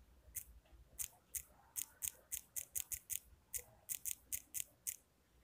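Typing on a smartphone's on-screen keyboard: a quick, irregular run of about fifteen short, light clicks, one per key press, a few a second.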